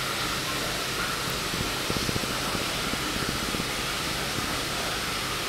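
Faint clicks and rubs of a rubber gasket being pushed by hand onto a pipe fitting through a filter wall, over a steady rushing background noise.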